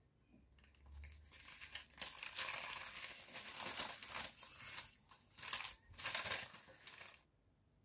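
Brown paper packaging being unwrapped and opened by hand, crinkling and rustling, with a couple of louder crackles near the end before it stops suddenly.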